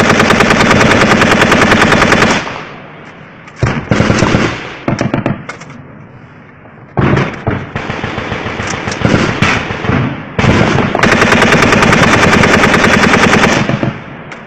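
Rifle firing long fully automatic bursts at close range: a burst of about two seconds at the start, a string of shorter bursts through the middle, and another long burst of about three seconds near the end.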